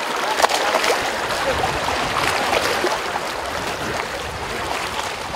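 Fast-flowing river water rushing steadily, with small splashes in the choppy current.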